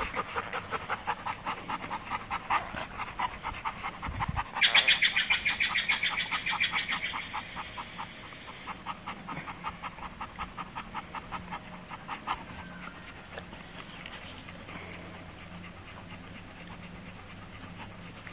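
Golden retrievers panting rapidly in a steady rhythm of several breaths a second. The panting is loudest about five seconds in and fades out after about twelve seconds.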